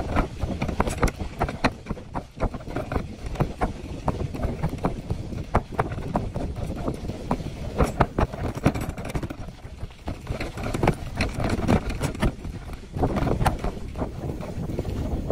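Bicycle rolling over a bumpy dirt road, heard from a phone in the mesh front basket: a constant low rumble with irregular rattles and knocks as the basket jolts.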